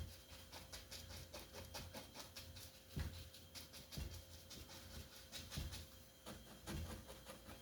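Faint, quick scratchy dabs of a small paintbrush on canvas, several strokes a second, with a few soft low thumps.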